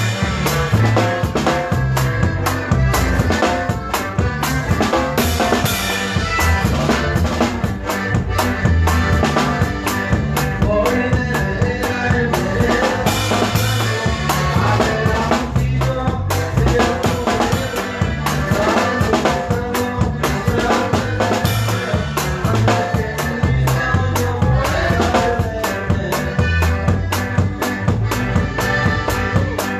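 Live norteño band playing a norteña song, with drum kit and bass keeping a steady dance beat under the melody.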